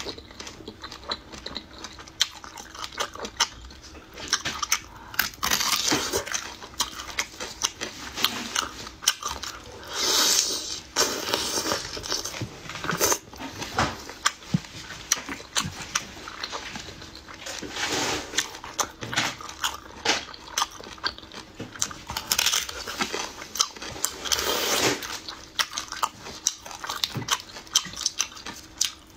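Close-up eating sounds: repeated wet sucking and slurping as shellfish meat is pulled from the shells, with chewing and small clicks of shell between them.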